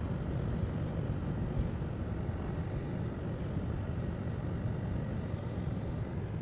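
Steady low rumble of a car's engine and tyres heard from inside the cabin while driving slowly on wet pavement.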